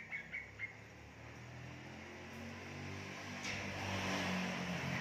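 A passing vehicle's engine hum swells over a few seconds to its loudest about four seconds in, then begins to fade. A few short bird chirps are heard at the very start.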